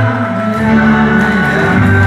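Live music from a small band: keyboard and acoustic guitar playing sustained chords, with the bass note shifting about half a second in and again near the end.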